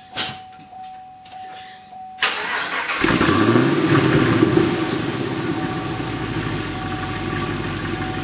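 2010 Camaro SS 6.2-litre V8, fitted with long-tube headers and high-flow cats, cranked by the starter about two seconds in. It catches a second later with a rising flare of revs, then settles to a steady idle.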